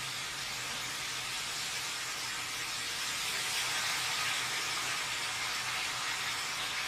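Steady hiss of background noise, swelling slightly midway, over a faint low hum.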